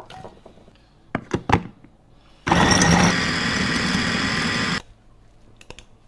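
Electric food chopper with a glass bowl running for about two seconds, its motor whirring steadily as the blades mince garlic cloves, then cutting off abruptly. A few clicks and knocks come before it starts and after it stops.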